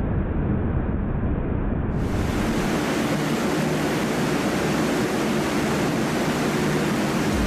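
LCAC hovercraft's gas turbines and lift fans running, a steady loud rushing noise. About two seconds in it turns thinner and hissier, with less low rumble.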